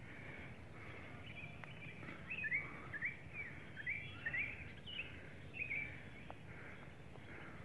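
Small birds chirping: a string of short, quick calls that sweep up and down, clustered in the middle, over a steady low outdoor background noise.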